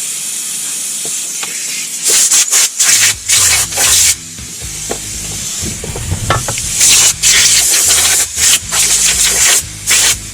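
A steady hiss, then from about two seconds in a run of loud, short bursts of hissing air, about a dozen in all, typical of a compressed-air blow gun or air tool worked in quick blasts.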